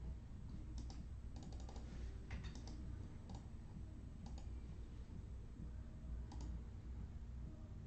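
Faint, scattered light clicks and taps, with a quick run of several about a second and a half in and a few single ones later, over a low steady hum.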